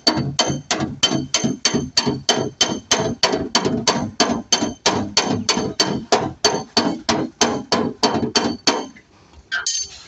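Dent repair on a Tata Manza's steel front fender: a rapid, even run of strikes on the sheet metal, about three a second with a metallic ring, stopping about nine seconds in.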